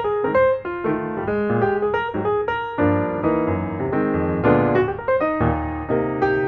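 Background music: a piano tune playing a run of quick notes over held chords.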